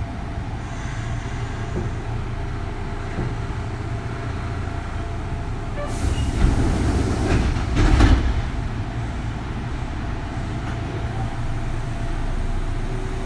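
Kintetsu 3200 series electric train running at speed, heard from inside a motor car: a steady rumble of wheels on the track. It grows louder with a rough clatter from about six to eight and a half seconds in.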